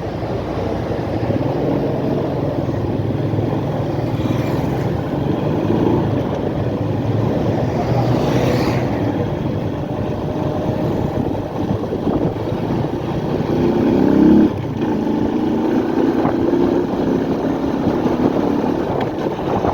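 Motorcycle engine running steadily, with a brief louder, higher-pitched rev about two-thirds of the way through.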